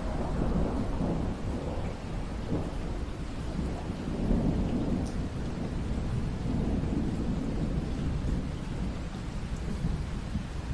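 Steady rain with low rolling thunder. The rumble swells as it begins and again twice later.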